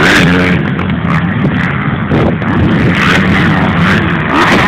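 Motocross motorcycle engines running hard, their pitch rising and falling as they rev.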